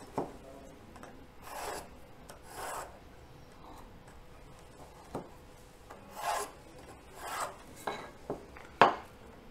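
Pencil drawing straight guide lines on paper along a wooden lath: four short scratchy strokes, with a few sharp knocks, the loudest near the end.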